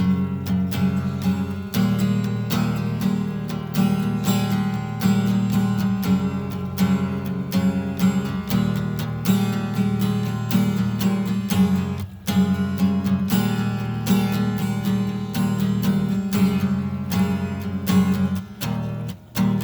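Acoustic guitar playing a continuous run of plucked and strummed notes over a steady bass line.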